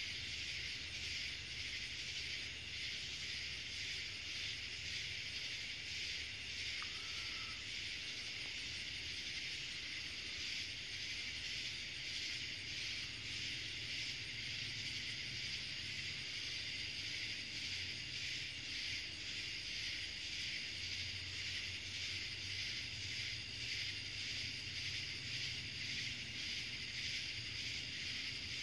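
Night insect chorus: steady high-pitched trilling that pulses at an even rhythm, over a faint low rumble.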